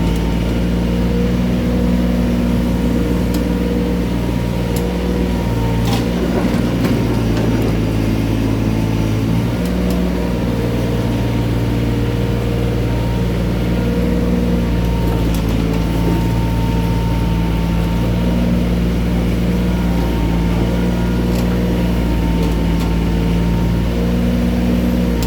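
Mini excavator's diesel engine running steadily, its note shifting a little as the hydraulics take load, with a few brief sharp knocks.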